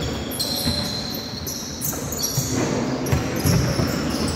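Basketball game play: a ball bouncing on the court floor, with short high squeaks that fit players' shoes on the floor.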